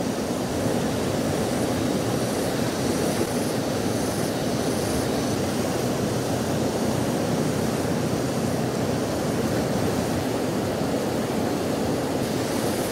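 Steady rushing of a fast-flowing river running over rocky rapids.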